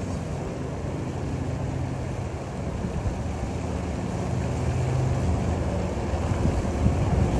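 An engine running with a steady low hum.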